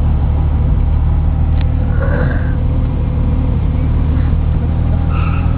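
Car engine and road noise heard from inside the cabin of a BMW cruising steadily at parade-lap speed: a constant low drone with no revving.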